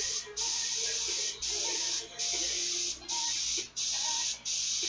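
Airbrush hissing in about six short bursts, each well under a second to about a second, as the trigger is pressed and released while spraying paint onto canvas.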